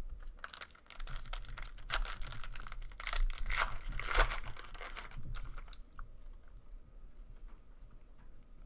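A trading-card pack wrapper being torn open and crinkled, with the tearing and rustling for about five seconds, then fading to soft handling of the cards.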